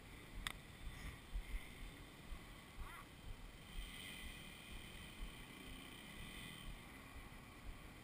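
Faint trail-bike engines idling, with wind buffeting the microphone and a single sharp click about half a second in.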